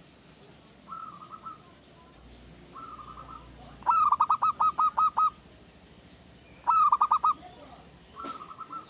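Zebra dove (perkutut) cooing: soft short phrases near the start and end, and two loud runs of rapid staccato coos, about eight notes some four seconds in and about five more near seven seconds. It is a young male that has only just begun to sing regularly.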